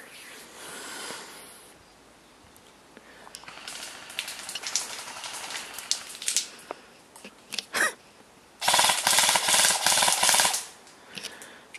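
An airsoft rifle firing one rapid full-auto burst of about two seconds, near the end. Before it, rustling and scuffing of movement with a couple of sharp knocks.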